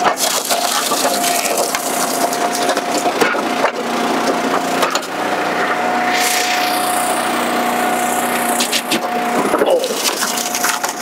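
A commercial log splitter forcing red oak through a box wedge, the wood cracking and splintering over the machine's steady whine.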